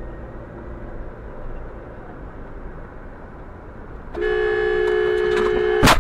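Car driving with steady road noise, then a two-tone car horn blaring for under two seconds starting about four seconds in, cut off near the end by a single loud bang of a collision with an SUV pulling across in front.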